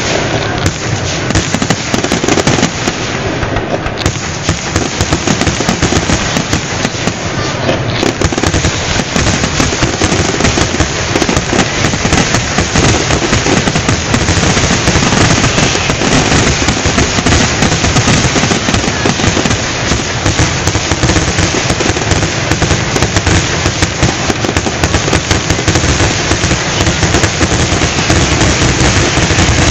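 Aerial fireworks going off in a continuous rapid barrage: many shell bursts and crackles overlapping with no pause, like a finale.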